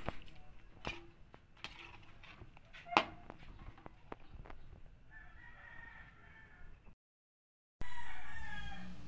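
A rooster crowing twice. The first crow starts about five seconds in and is cut off by a brief dropout; the second, near the end, falls in pitch as it fades. A few sharp clicks or taps, the loudest at the very start and about three seconds in.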